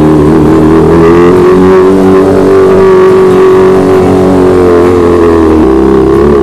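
Sport motorcycle engine running as the bike rolls slowly up a paved lane, its pitch mostly steady with small rises and dips, shifting near the end as it pulls up.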